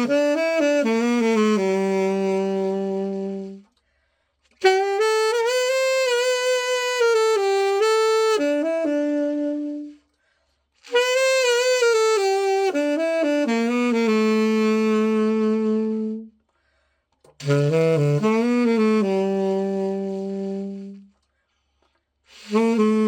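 Genesis Master 7 Arc Silver tenor saxophone played in short melodic phrases, each ending on a held low note, with a breath pause of about a second between them: a play test of the horn after a precision setup.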